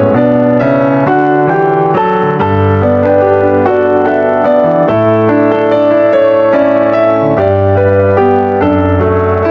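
Background piano music: a flowing run of notes over low bass notes that change every couple of seconds.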